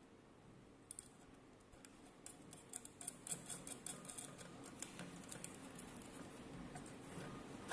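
Light clicks and ticks of a glass kettle jug and its metal band and handle being handled and fitted together by hand, a couple about a second in and busiest in the middle.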